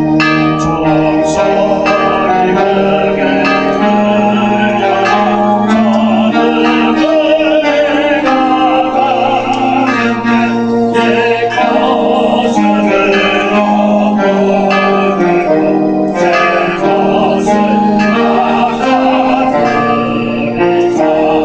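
Church music: voices singing a slow melody over held, organ-like chords that change every second or two, with many short, bright struck notes throughout.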